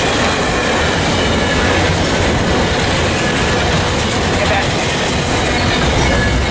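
A train rolling on the rails: a loud, steady rumble of wheels on track, with faint high wheel squeal.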